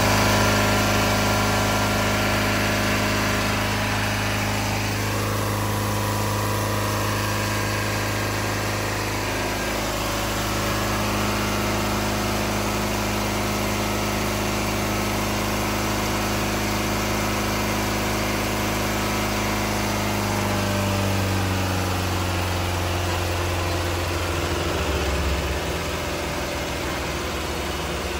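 Truck's diesel engine running fast by itself and refusing to shut off, a steady high-revving drone. About three-quarters of the way through it slows with a falling pitch and settles at a lower speed.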